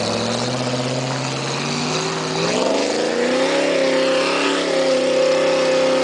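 Range Rover Classic's V8 engine revving up from about two seconds in and then held at steady high revs as it drives off up a muddy track.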